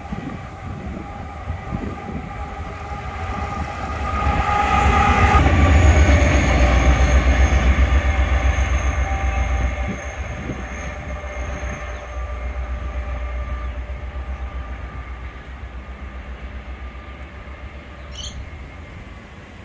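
Aurizon LZ class diesel-electric locomotives running past with a low, pulsing engine rumble. The sound builds to its loudest between about five and ten seconds in as the locomotives go by, then fades as they pull away.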